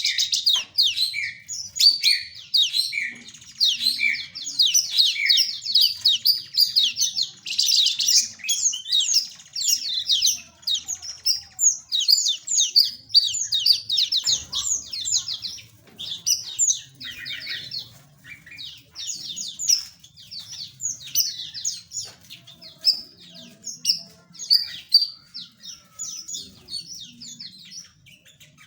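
A flock of small aviary birds chirping busily, many short high calls overlapping in a fast, continuous chatter.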